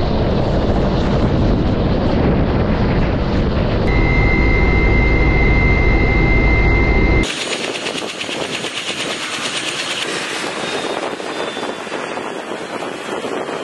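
Kamov Ka-32 helicopter running: a deep, heavy rotor and engine noise, with a steady high whine from about four seconds in. After about seven seconds it turns quieter and thinner, with a fast rhythmic rotor chop.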